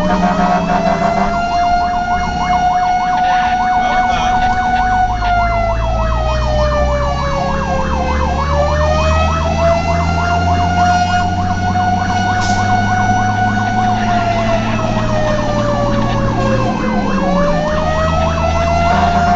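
Fire truck siren wailing, its pitch slowly rising and falling with two long dips, with a second fast warbling siren tone over it for much of the time. The truck's engine runs steadily underneath.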